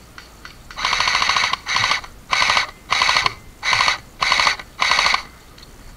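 JG G3 airsoft electric gun firing full-auto in about seven short bursts, its gearbox cycling with a fast, even rattle; the first burst lasts close to a second and the rest are shorter.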